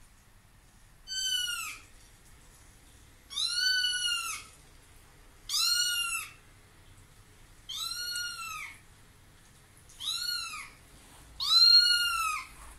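Kitten meowing repeatedly from a kitten video played through a laptop's speakers: six high-pitched mews about two seconds apart, each rising and then falling in pitch.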